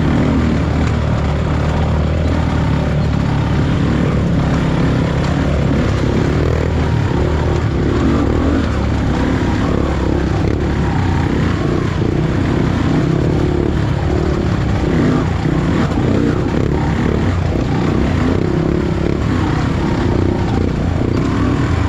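Trail motorcycle engine running steadily while riding, its pitch rising and falling with the throttle.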